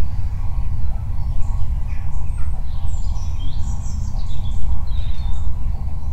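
Birds chirping with short, high calls, busiest in the middle, over a loud steady low rumble.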